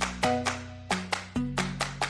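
Background music: a run of plucked, pitched notes over a sustained bass line, about two to four notes a second.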